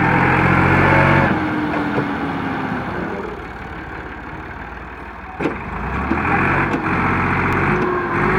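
Massey Ferguson 260 Turbo tractor's three-cylinder diesel engine running under load while its rear blade pushes soil. The engine is loudest in the first second, eases off through the middle and builds again near the end, with a single sharp knock about five and a half seconds in.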